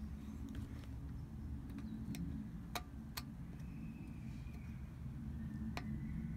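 A few light, separate clicks of a small screwdriver working the tiny back-plate screws of a Garmin vívofit jr 2 watch, over a low steady background rumble.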